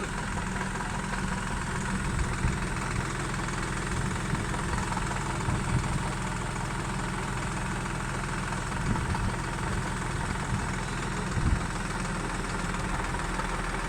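Engine idling steadily, with a few brief low bumps along the way.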